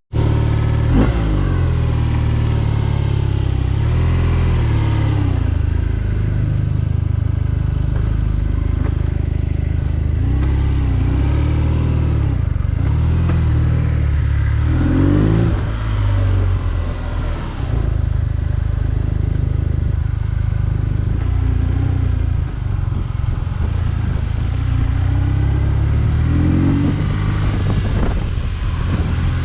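BMW R nineT Urban G/S's boxer twin engine running under way, its pitch rising and falling with the throttle and gear changes, with rising revs about halfway through and again near the end.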